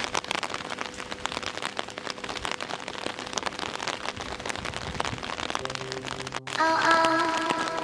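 Rain falling on wet pavement, a steady hiss full of small drop ticks. Background music comes back in near the end.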